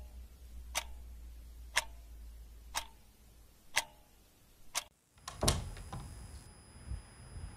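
A clock ticking once a second, five even ticks over a low hum, which stop about five seconds in. After a brief gap comes a quick cluster of sharp knocks, then a few softer thumps.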